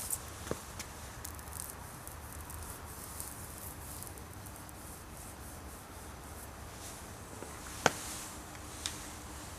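Faint handling and rubbing noise with scattered small ticks, then a sharp click about eight seconds in and a softer one a second later.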